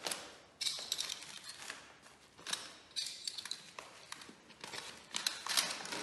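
Paper vacuum dust bag rustling and crinkling as its folded top is handled and fastened with metal binder clips, in several short bursts with a few light clicks.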